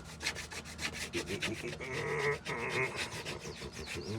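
Fast back-and-forth rubbing strokes, several a second, of a hand tool abrading and shaping hardening Bondo body filler on wooden brick mold.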